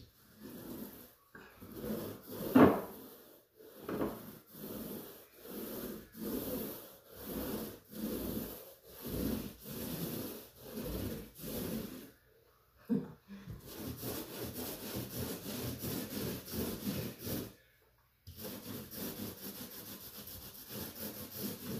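Paint roller rolling paint onto a drywall wall: a sticky rubbing swish about once a second, then faster, near-continuous rolling in the second half. A sharp knock a little over two seconds in is the loudest sound.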